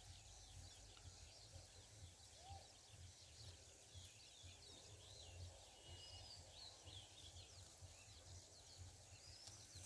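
Near silence: faint outdoor ambience with small birds chirping now and then in the distance.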